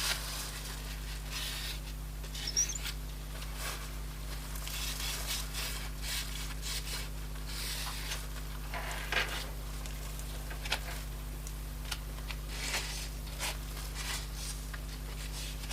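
Cloth wiping the glass of an iPad 2 screen with isopropyl alcohol: irregular soft rubbing strokes with a brief squeak, over a steady low hum.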